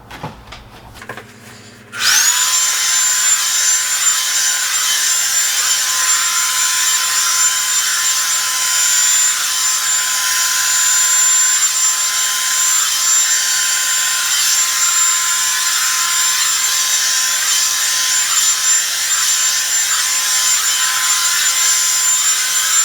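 Revlon blow dryer switching on about two seconds in. Its motor whine rises quickly to a steady high pitch, then it runs continuously with a loud, steady rush of air.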